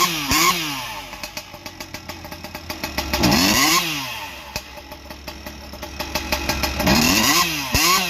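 Husqvarna 592 XP two-stroke chainsaw with an expansion pipe, idling unevenly and blipped three times, each rev rising and dropping straight back to idle. The hesitation off idle is the bottom-end problem the owner puts down to the autotune running too lean with the pipe.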